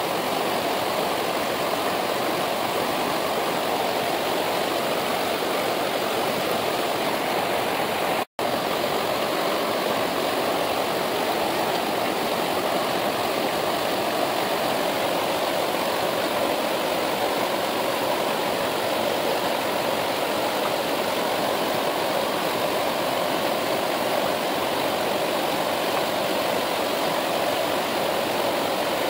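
Steady rushing of a fast-flowing mountain river, an even noise without change in level, broken only by a momentary dropout about eight seconds in.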